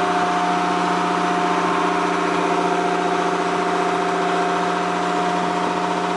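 Charter fishing boat's engine running steadily on a constant note, with a few fixed tones over a continuous hum.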